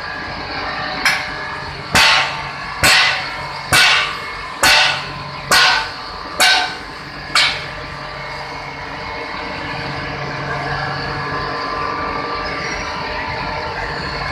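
Sugar mill machinery running with a steady hum, broken in the first half by eight sharp metallic bangs, a little under one a second, each ringing briefly; then the hum goes on alone.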